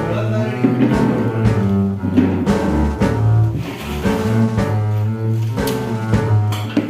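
Background music with a prominent double bass line and other string instruments.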